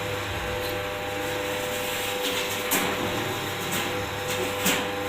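Milk-powder extractor machine running with a steady hum and a held whine, with a few light knocks about midway and near the end.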